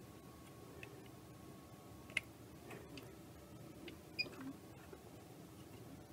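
Faint clicks and taps of fingers handling a circuit board and seating an electrolytic capacitor's leads in it. The two sharpest ticks come about two seconds and about four seconds in.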